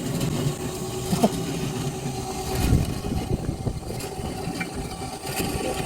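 A motor running steadily, with a low rumble and a faint steady hum.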